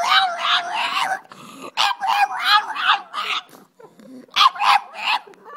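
Pug howling in wavering, drawn-out calls that rise and fall in pitch, in three bouts with short pauses between.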